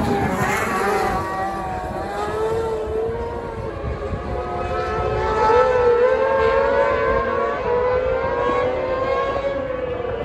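Racing car engine lapping the circuit, its note rising and falling with the revs as the car accelerates and changes gear.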